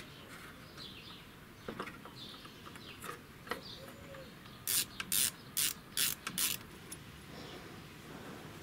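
A few light metal clicks, then a ratchet wrench clicking in five short runs about half a second apart, working the bolts of an oil pump being refitted with a new gasket.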